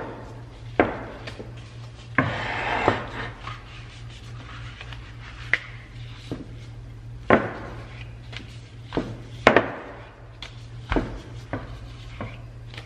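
Rolling pin working a ball of dough on a silicone mat over the counter: a string of scattered knocks and taps as the pin is pressed, lifted and set down, with a longer rubbing roll about two seconds in. A steady low hum runs underneath.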